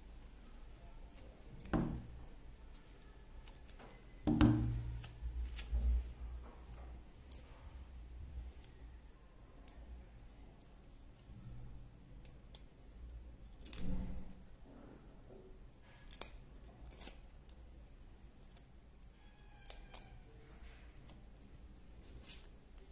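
Scattered light taps, clicks and paper rustles of card-making pieces being handled on a wooden table, with a few louder knocks, the loudest about four seconds in and again near fourteen seconds.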